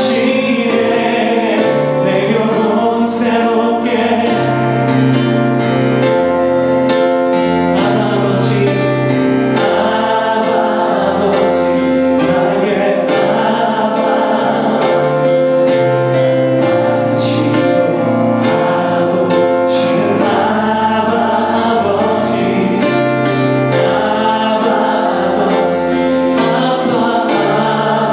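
A man sings a slow Christian worship song into a microphone over sustained keyboard accompaniment, with a bass note that changes every couple of seconds.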